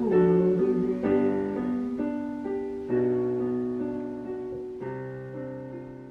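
Electronic keyboard in a piano voice playing slow, sustained chords with no singing. A new chord comes roughly every second, with a last one near five seconds in, and the sound dies steadily away as the song ends.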